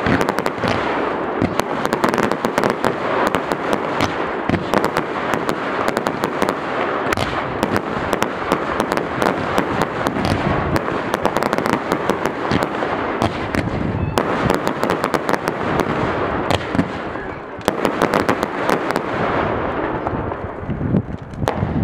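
Fireworks display barrage: a dense, unbroken run of crackling and popping reports, many per second, with heavier bangs among them. The barrage dips briefly about three quarters of the way through, then picks up again.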